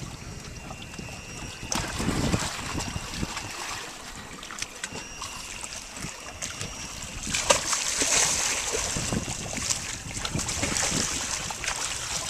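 Water splashing beside the boat as a hooked tarpon thrashes at the surface, in two bouts: one about two seconds in and a longer one from about seven seconds in.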